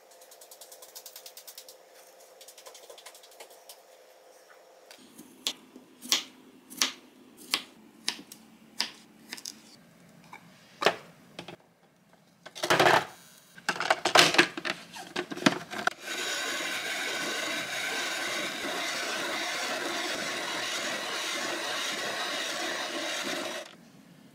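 A small bear-shaped bingsu ice shaver running steadily for about seven seconds in the second half, shaving frozen milk ice. Before it come a series of sharp clicks and knocks, then a louder cluster of hard plastic clatter as the machine's lid is handled.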